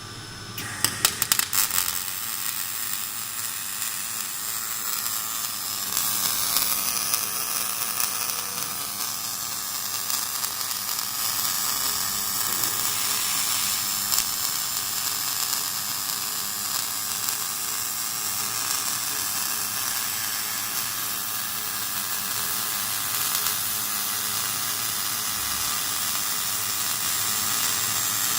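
Electric welding arc struck a little under a second in with a few sharp cracks, then crackling and sizzling steadily as the weld is laid.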